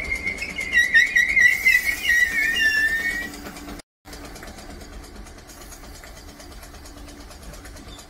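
Metal-on-metal squeal from a Merseyrail electric train: a loud, wavering high-pitched tone lasting about three seconds. After a brief break it gives way to a quieter, steady low hum.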